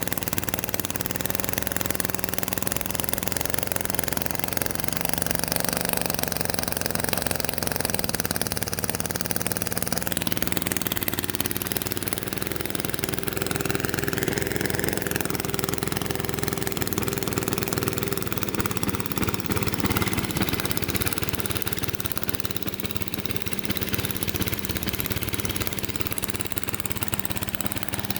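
Small lawn mower engine idling rough, running unevenly despite a newly replaced carburetor and fresh oil and fuel after sitting for years. Its note shifts about ten seconds in.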